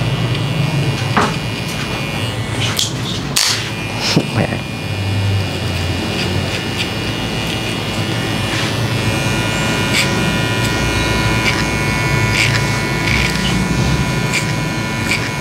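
Andis electric hair clipper running steadily with a thin hum while it cuts clipper-over-comb up the nape to blend a fade, with scattered short clicks as the comb and blade work through the hair.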